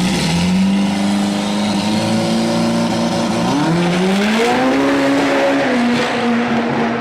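Car engine accelerating hard. Its pitch dips about three seconds in, as at a gear change, then climbs again and levels off.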